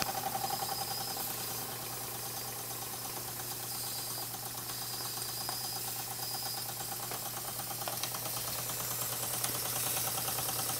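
Jensen No. 5 toy steam engine running steadily, its small piston beating in a fast, even rhythm.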